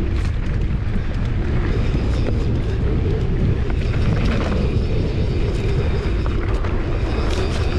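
Loud, steady low rumble of wind buffeting the microphone, with scattered small clicks and rattles.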